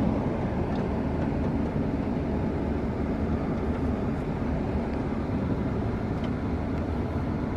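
Steady low rumble of a Wesumat soft-touch rollover car wash's machinery, heard from inside the car's cabin, during a weak pass that only dribbles water onto the car.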